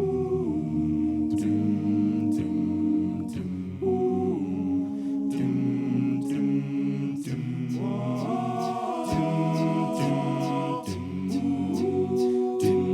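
All-male a cappella group singing held, wordless chords that shift every few seconds, over a steady vocal-percussion beat of sharp hits about once a second.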